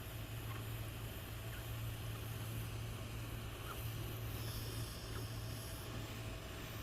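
Steady low mechanical hum with a constant hiss over it and a few faint ticks.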